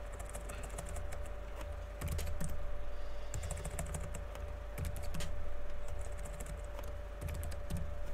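Computer keyboard typing, keystrokes coming in short irregular bursts, over a steady hum.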